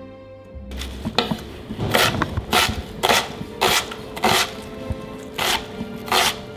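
A kitchen knife chopping food on a cutting board: about eight separate strokes, one every half second to second, over background music.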